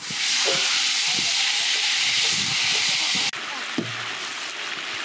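Sliced eggplant deep-frying in a large steel tray of hot oil, sizzling steadily. The sizzle is loudest for the first three seconds or so, then drops suddenly to a quieter, steady sizzle.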